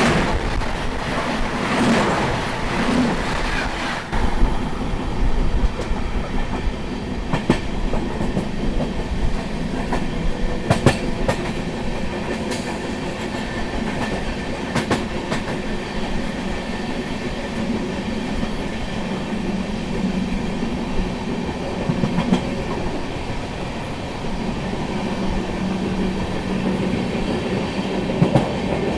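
Indian Railways passenger train running along the track: a steady rumble with scattered sharp clicks of the wheels passing over rail joints, louder and fuller for the first few seconds.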